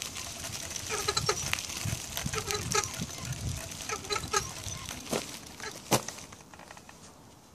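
An e-bike wheel turning with a squeak from the hub motor: short high squeaks in groups, repeating about every second and a half, over a low rumble. A sharp click comes about six seconds in, then the sound fades away. The owner suspects the motor, perhaps a bearing that does not run smoothly.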